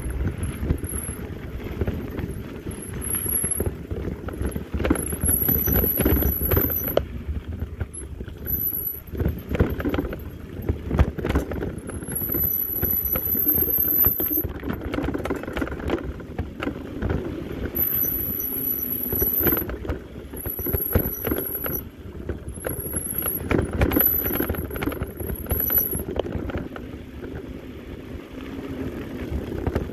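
Mountain bike riding over a dry, rocky dirt trail: a steady rush of tyre and wind noise with frequent knocks and rattles from the bike over bumps, and a thin high-pitched squeal that comes and goes several times in stretches of one to two seconds.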